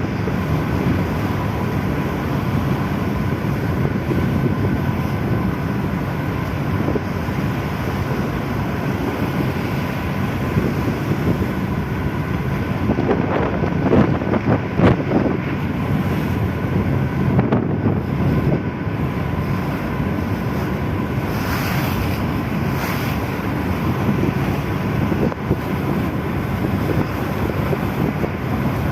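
Strong wind buffeting the microphone over a steady low engine drone, with a few brief louder gusts partway through.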